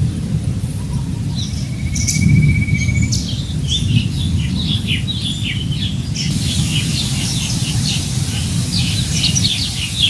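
Many small birds chirping with short quick calls, thicker in the second half, over a steady low rumble of wind on the microphone. About a second and a half in, a short buzzy trill.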